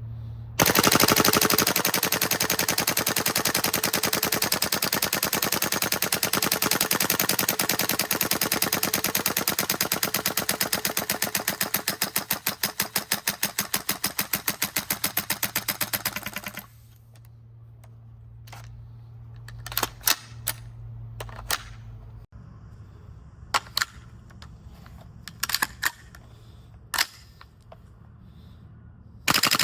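Gas blowback airsoft rifle, a GHK HK416A5, firing a long stretch of rapid full-auto clicks for about sixteen seconds. It then fires single semi-auto shots at uneven gaps.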